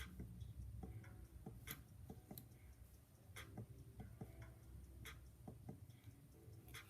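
Faint, irregular small clicks of a lock pick working the pins inside a Master 410 Lockout padlock under light tension.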